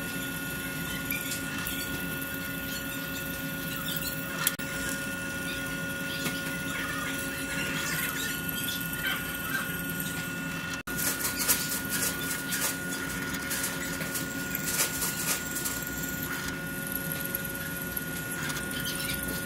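Benchtop drill press running with a steady motor hum as a twist drill bit bores through a metal plate, with scratchy, high-pitched cutting noise that comes and goes as the bit bites. The sound cuts out briefly about eleven seconds in.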